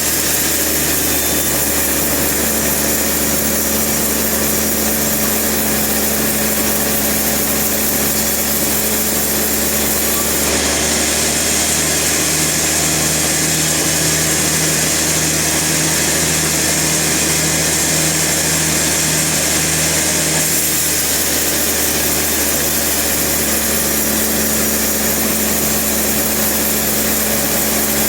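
Sawmill machinery running steadily, with a faint regular pulsing underneath; the sound turns brighter and harsher for about ten seconds in the middle.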